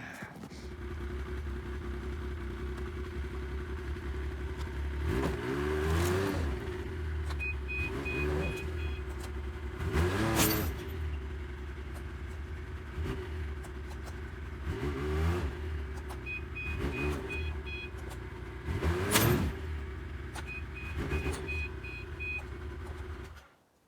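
Yamaha Viking snowmobile engine running under load, revving up and down in about eight surges as it strains to pull a heavy log on a sled. Three short runs of beeping come through, and the engine cuts off suddenly near the end.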